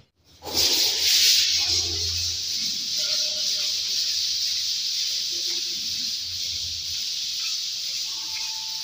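Two people hand-sanding dried wall putty with 180-grit waterproof sandpaper, making a steady high hiss that starts abruptly about half a second in.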